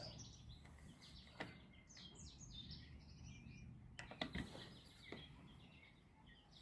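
Faint bird chirping: a quick series of short, high chirps about two seconds in, over quiet outdoor background with a few soft clicks.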